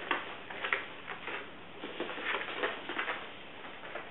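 Light, irregular patter of a dachshund's paws on a tatami mat as it moves about searching for a ball, several soft taps a second.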